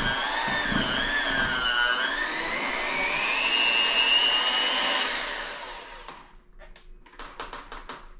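Electric hand mixer beating thick chocolate cake batter in a glass bowl, its motor whine wavering in pitch as the beaters work through the stiff batter, then climbing and winding down to a stop about five seconds in. A quick run of light clicks follows near the end.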